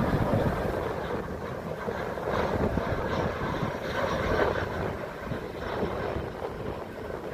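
Jet engines of a twin-engine narrow-body airliner on final approach with landing gear down, a steady noise that slowly fades as the aircraft moves away toward the runway.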